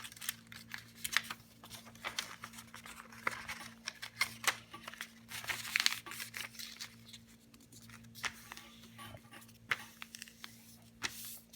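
A sheet of paper being handled and folded: scattered crinkles, rustles and the sharp snaps of creases being pressed in, irregular throughout.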